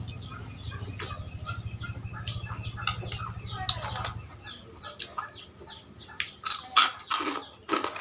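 Close-up eating sounds: a person biting and chewing mouthfuls of noodle soup, the bites loudest in the second half. Birds chirp in the background, and a low hum stops about four seconds in.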